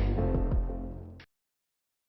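Background music fading out, with a few light percussive hits, then cutting to dead silence a little over a second in.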